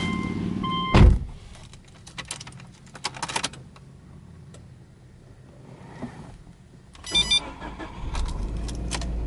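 A car door shuts with a loud thump about a second in, cutting off a beeping warning chime, followed by a few light clicks at the ignition. About seven seconds in, the starter whirs briefly and the Subaru Legacy's 2.0-litre flat-four (boxer) engine fires and settles into a steady idle.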